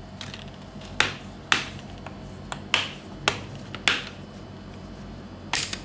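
Sharp clicks and snaps, about six spread over several seconds, from an HP Omen laptop's frame being taken apart.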